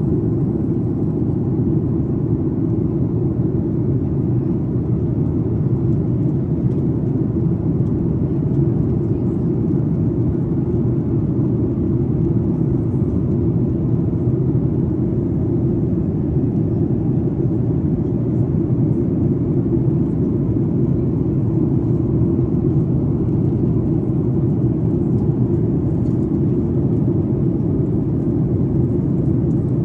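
Steady low cabin rumble of a Boeing 737 airliner in flight, the engines and rushing air heard from a window seat over the wing, even throughout with no change.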